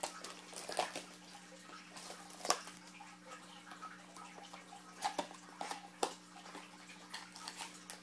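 Scattered crackles and clicks of a sealed trading-card mini box being opened by hand: packaging and cardboard handling, over a steady low hum.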